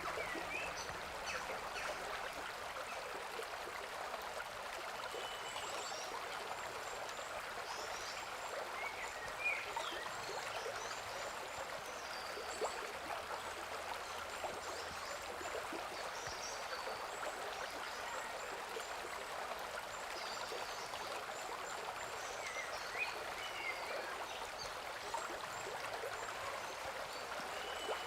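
River water running steadily, with short bird chirps here and there over it.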